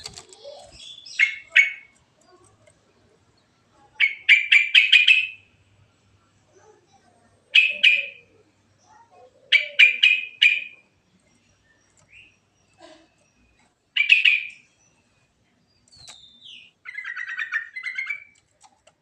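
Yellow-vented bulbul singing: short phrases of quick notes, each up to about a second long, repeated with pauses of one to three seconds.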